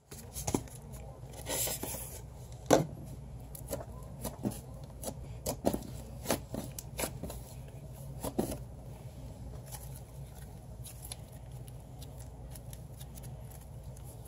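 Slime being kneaded and pressed into baby powder on a tabletop: a run of sharp pops and taps through the first eight or nine seconds, the loudest about three seconds in, then only a steady low background hum.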